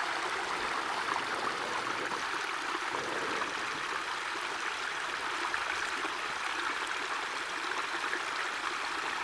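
Snowmelt water running out from under a snowfield as a small stream, flowing steadily.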